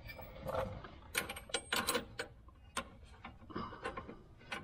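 Open-end wrenches clicking and clinking against a brake line fitting as it is tightened, in a run of short, irregular metal ticks.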